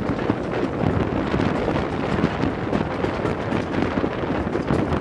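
Wind buffeting the microphone held out of a moving carriage window, over the steady running noise of a steam-hauled train behind a BR Standard Class 9F locomotive.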